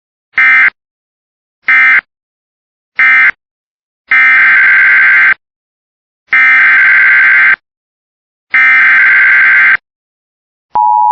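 Emergency Alert System digital data bursts, a harsh buzzing warble: three short end-of-message bursts, then three longer header bursts that announce the next alert. Near the end a loud, steady, single-pitched attention tone starts.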